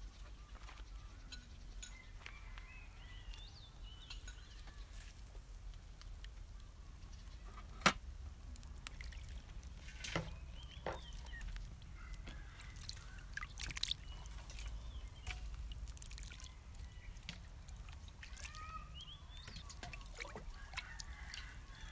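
Tomatoes being washed and set into a stainless steel colander: water dripping and light sloshing, with sharp knocks of fruit against metal. The loudest knock comes about eight seconds in, with a few lighter ones later.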